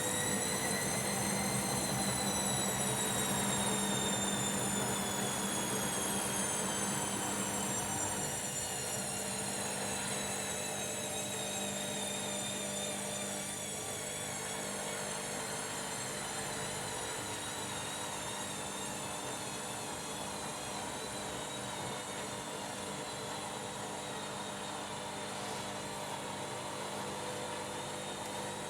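Washing machine motor whining during a spin, the high-pitched whine peaking about a second in and then sinking slowly and steadily in pitch, over a steady low hum.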